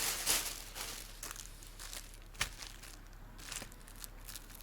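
Plastic snack packaging crinkling as it is handled, with one sharper click about halfway through.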